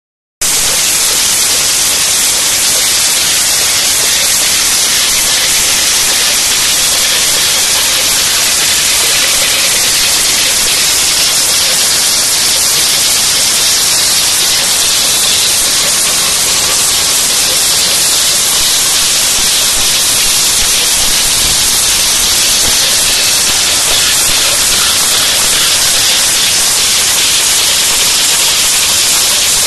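FR-210 slitter rewinder running, BOPP tape film feeding through and winding onto narrow rolls on the rewind shafts, heard as a loud, steady, even hiss.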